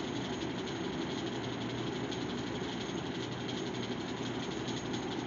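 Electric fan running steadily, a constant rush of air noise with a fine rattle in it.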